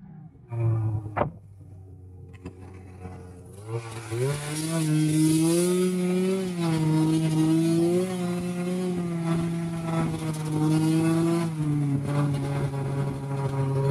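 Snowmobile engine of a 2005 Arctic Cat Sabercat running low and fairly quiet, with one sharp click about a second in. About four seconds in it revs up and then runs steadily at a higher speed, its pitch wavering slightly.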